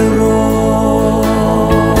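Gospel song music holding long, steady notes.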